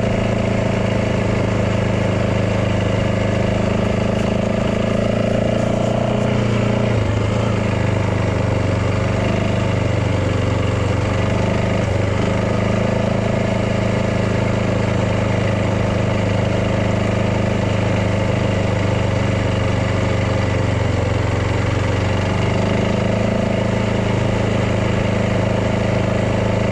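Yamaha dirt bike engine running steadily at low speed, with an even, constant note. The note drops a little about seven seconds in and picks back up near the end.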